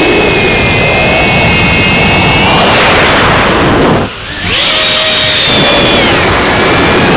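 FPV quadcopter's electric motors and propellers whining loud and close, heard through the onboard camera's microphone with a rush of air noise. About four seconds in the throttle is cut and the whine drops away briefly, then comes back at a higher pitch and eases lower again near the end.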